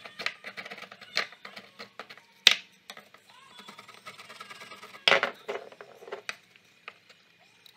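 Wood chisel paring and scraping a small wooden strip on a workbench. Scraping cuts come with sharp clicks, the sharpest about two and a half seconds in, and a cluster of knocks about five seconds in.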